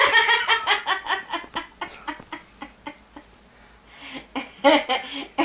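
People laughing hard at a joke: a burst of rapid, repeated laughs that trails off after about two and a half seconds, then laughter starts up again about four seconds in.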